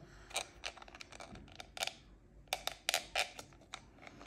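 Irregular light clicks and taps of small 3D-printed plastic pieces as fingers and fingernails fit the stopper onto a diamond-painting tray, bunched together in the second half.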